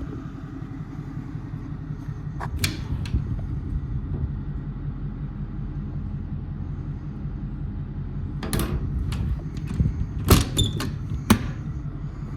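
Ford 6.4 Power Stroke V8 diesel idling steadily, with sharp door or latch clunks over it: a few about two and a half seconds in, then a cluster from about eight and a half to eleven and a half seconds, the loudest about ten seconds in.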